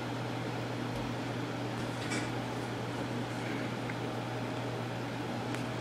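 Steady low hum and hiss of background noise, with a few faint short clicks from taps on an iPhone's on-screen keyboard.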